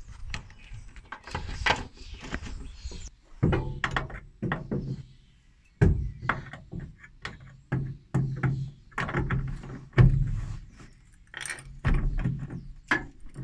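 Socket wrench on a long extension bar working the rusted bolts of a Twingo rear axle beam: a run of irregular metal clunks and knocks, about one a second, each with a short low ring from the car body.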